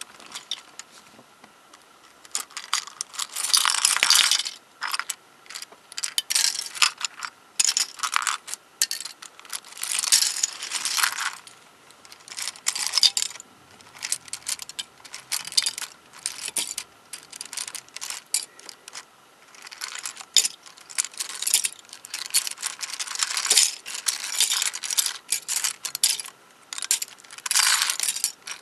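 Small plastic pieces of a MoYu 13x13x13 cube clicking and clattering as it is pulled apart by hand, in irregular bursts of sharp clicks with short quiet gaps between.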